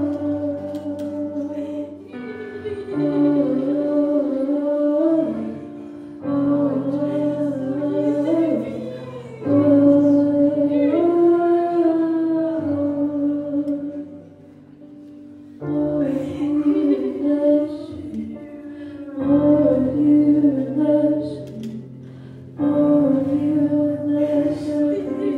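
Slow worship singing in long, held phrases with short breaks every few seconds, over sustained instrumental chords.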